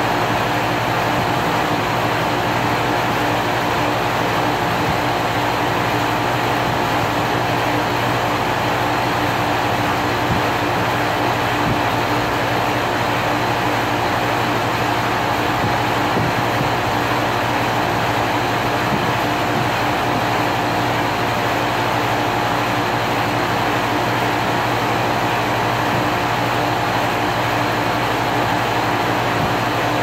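2001 Carrier 5-ton air conditioner running steadily: a constant hum with an even rushing noise over it, unchanging in level.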